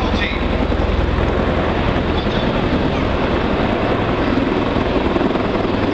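Rotor noise from a U.S. Marine Corps MV-22 Osprey tiltrotor hovering low with its nacelles tilted up, together with a second helicopter: a steady, loud drone with a fast low beat in the first couple of seconds.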